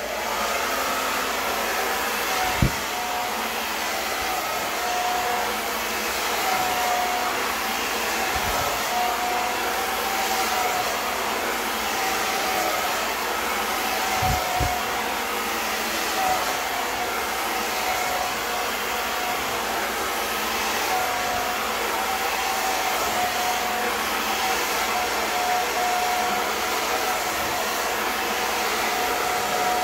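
Handheld hair dryer running steadily, a constant rush of air with a steady motor whine in it, while it blows hair dry through a brush. A few short low thumps come in the first half.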